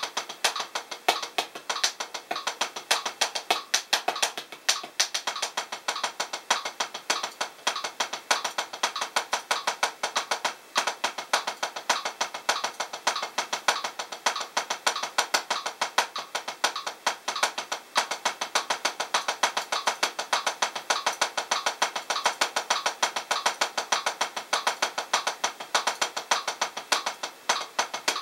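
Los Cabos 7A hickory drumsticks playing single paradiddles on a P4 practice pad, as steady sixteenth notes at 100 bpm: a fast, even stream of sharp stick taps, about six or seven a second.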